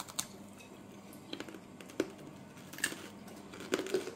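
Freeze-dried sweets crunching as they are chewed: a handful of short, crisp clicks spread out, with gaps between them.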